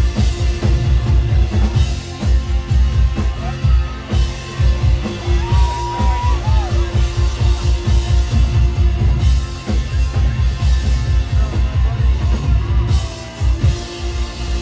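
Live rock band playing loud, driven by a drum kit with a dense, fast beat and guitar. A held high note stands out for about a second, about six seconds in.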